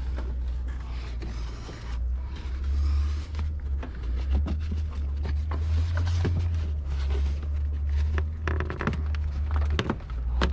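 Irregular clicks and knocks of hand tools and loose metal hardware being handled, over a low steady rumble.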